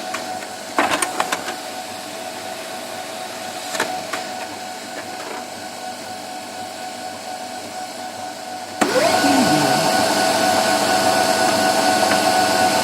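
Office printer mechanism humming with a steady tone, with a few clicks about a second in and again near four seconds. About nine seconds in it suddenly starts running much louder and steadily.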